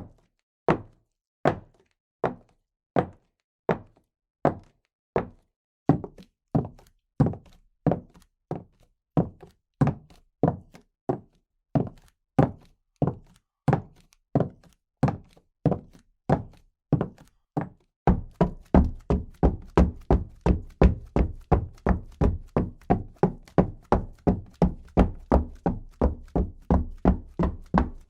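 Footsteps, evenly paced walking steps that quicken slightly, each a sharp knock. About eighteen seconds in, they give way to much faster steps, about three a second, heavier and deeper.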